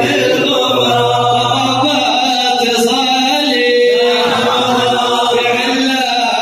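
A large crowd of men chanting a Ramadan-farewell qasidah together in unison, a sung melody with long held notes.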